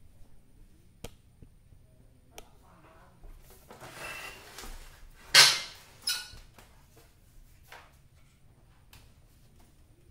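Knocks and scrapes from an opened CRT television set being handled and moved about on a tile floor, with one sharp knock about five seconds in, the loudest, and a smaller one just after.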